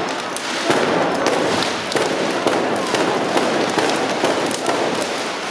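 Fireworks going off inside a tall burning wooden stack: a dense, continuous crackling of many rapid pops.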